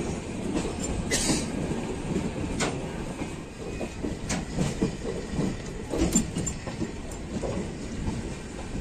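Passenger train coach running on the track, heard from inside the coach: a steady low rumble with irregular sharp clacks of the wheels over the rail joints.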